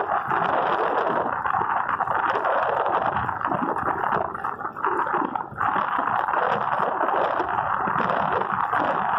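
Steady rushing noise from travelling along a road: wind buffeting the microphone, with a low rumble underneath. It dips briefly about four to five seconds in.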